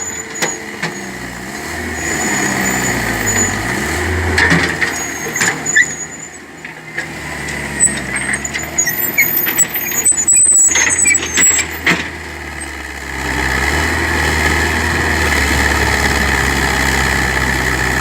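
Excavator's diesel engine running, its pitch rising and falling as it works, with scattered knocks and clanks. About thirteen seconds in it settles into a steadier, louder run.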